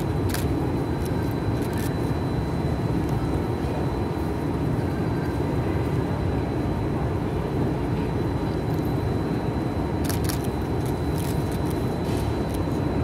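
Steady low rumbling background noise with a faint high whine through it, broken by a few short sharp clicks near the start and again about ten seconds in.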